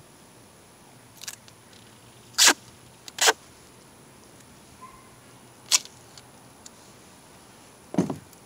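A few sharp clicks and knocks from hooking up a trolling motor battery aboard a kayak. Two loud ones come about a second apart, followed by a lighter click and then a duller knock near the end.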